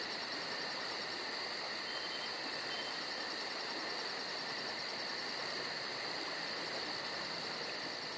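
Chorus of crickets and other insects: a steady high buzz with fast, even chirping at about five chirps a second, which pauses for about a second near the middle.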